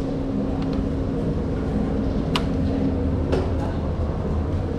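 Electric scooter ridden slowly: a steady low rumble of the ride with a steady hum, and two short sharp clicks in the middle.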